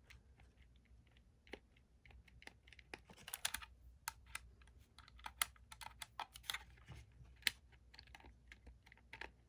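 Faint, irregular clicking and tapping of small hard objects, a few strokes at a time with short gaps between them.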